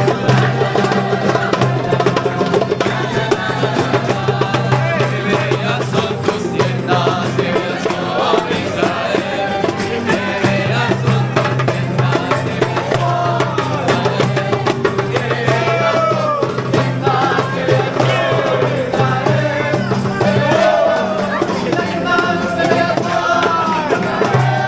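Music: a song with a singing voice over held bass notes and a fast shaken-percussion rhythm.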